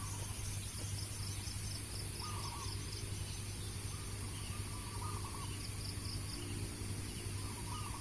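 Zebra dove (perkutut) cooing in short warbled phrases, several times over, with runs of rapid high chirping. A steady high-pitched whine and a low hum run underneath.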